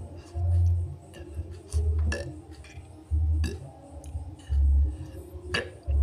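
Background music with a slow, steady bass beat, about one deep pulse every second and a half, and a few light clicks and clinks between the beats.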